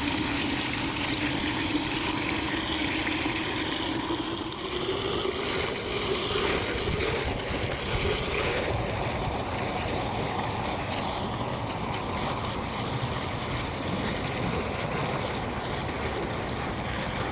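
Garden hose running water into a sewer cleanout, a steady splashing pour down the pipe, with a tone rising in pitch over the first several seconds. The under-slab sewer line is being filled up to slab level for a leak test.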